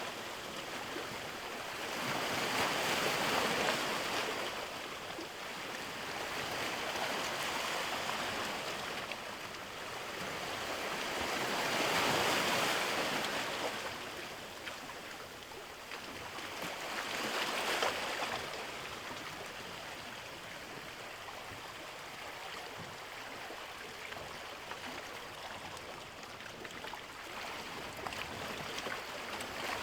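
Ocean waves washing in and ebbing, the wash swelling and fading about every four to five seconds.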